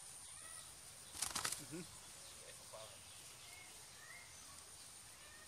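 A hen flapping its wings in one quick burst of about five flaps, a little over a second in.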